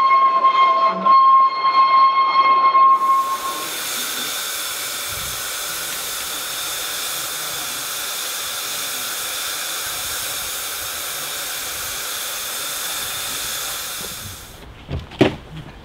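A steam locomotive's whistle sounds a steady note for about the first three seconds. It gives way to a loud, even hiss of steam blowing off from the 4-4-0T tank engine, which fades out near the end and is followed by a few knocks.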